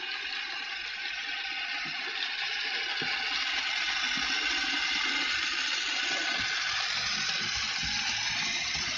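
Märklin HO model trains running on the layout: a steady whirring rush of the locomotive's electric motor and metal wheels on the rails, getting a little louder over the first few seconds as the steam tank locomotive passes close by.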